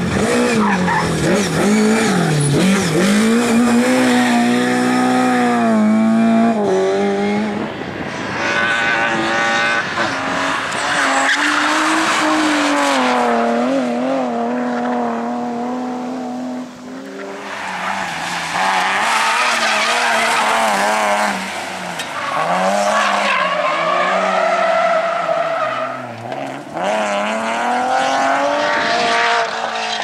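Rally car engines revving hard and falling back through tight turns, with tyres squealing and skidding. Several cars are heard one after another.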